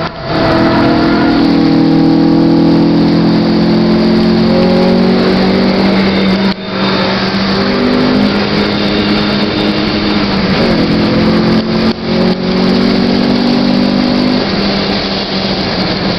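Honda Civic engine heard from inside the cabin, pulling hard at speed with its pitch slowly climbing and shifting, over wind and tyre noise. The sound breaks off sharply for a moment about six and a half seconds in and again around twelve seconds.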